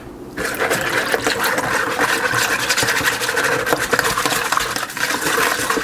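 Wire whisk beating a thin liquid marinade in a mixing bowl: a fast, steady clatter of the wires against the bowl, pretty loud, starting about half a second in.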